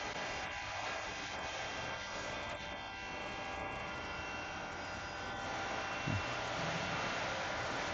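HCK60Y CNC turn-mill lathe running through rough turning, a steady machine whine with several steady tones over the hiss of the cut. A brief low rising tone sounds about six seconds in.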